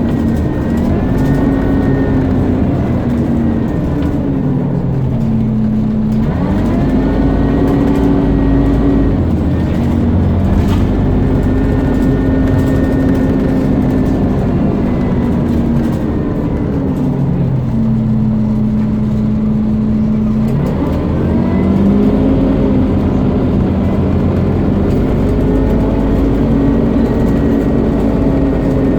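Scania CN230UB Omnicity bus engine and driveline with a loud hoover-like whine, repeatedly pulling away, holding speed and easing off: the pitch climbs, holds and falls several times. It holds a steady tone for a few seconds about two-thirds of the way in, then climbs again.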